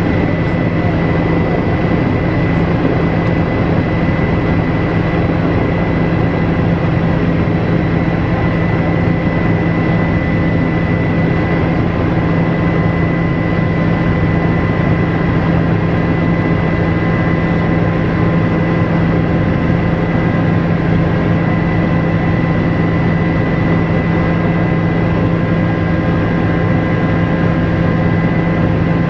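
Helicopter in steady flight heard from inside the cabin: the turbine engine and main rotor make a constant loud drone with a steady high whine over it.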